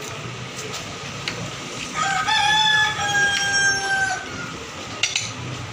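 A rooster crowing once: a single long crow of about two seconds, with a short break partway through and a slight drop in pitch at the end.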